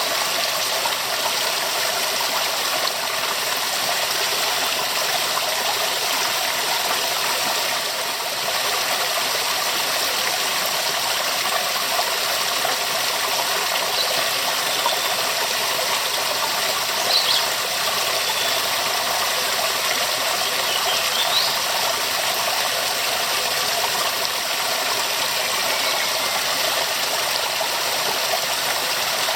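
Waterfall: a steady, dense rush of falling water that does not change.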